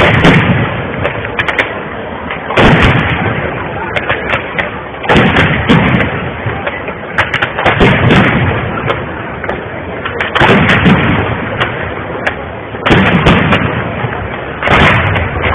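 Aerial firework shells bursting in a steady sequence: a loud boom about every two to two and a half seconds, with sharp crackling between the booms.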